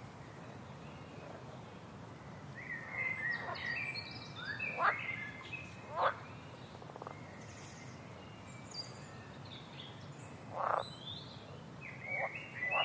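Forest birds chirping in short clusters of quick, high gliding notes, with a few louder single sharp calls, over a steady low outdoor hiss.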